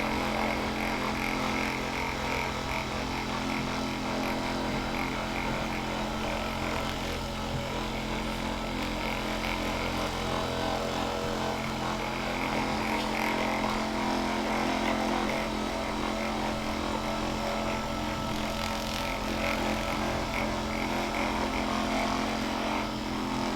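Electric percussion massage gun running steadily, a constant motor buzz that holds one pitch throughout.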